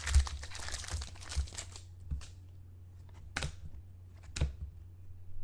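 Trading card pack wrappers and cards being handled: crinkling and tearing for about the first two seconds, then a few separate sharp clicks and snaps.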